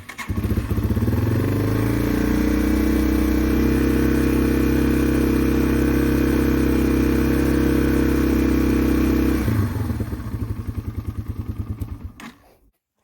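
Yamaha TW200's air-cooled single-cylinder four-stroke engine firing straight up on a restart after its carburettor was primed by leaning the bike over. It climbs within a second to a steady, higher speed and holds there for about eight seconds, then drops to a slower, uneven idle and stops about twelve seconds in.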